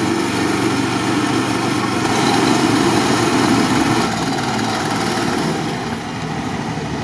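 Small 12 hp petrol engine of a homemade balloon-tyred swamp buggy running steadily as the buggy drives through shallow water. It grows louder about two seconds in and eases off near the end.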